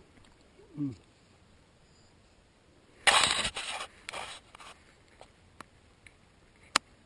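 Several loud bursts of scraping and rustling, lasting about a second and a half and starting about three seconds in, then a few sharp clicks: a person shifting and brushing against a tree's branches and dry leaves. A short low voice sound, falling in pitch, comes about a second in.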